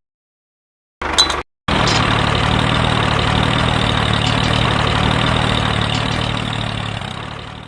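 Engine running steadily at idle, starting abruptly after a moment of silence and a short burst, then gradually fading out near the end.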